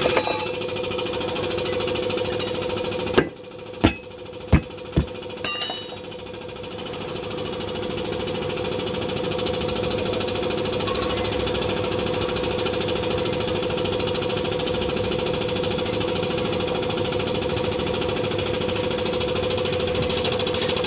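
Small air compressor running steadily with a constant hum. About three seconds in, four sharp metallic knocks come in quick succession.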